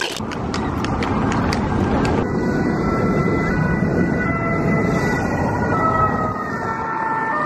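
Busy city street noise with a siren: from about two seconds in, steady tones step between pitches over continuous traffic and crowd noise. A few sharp clicks come in the first two seconds.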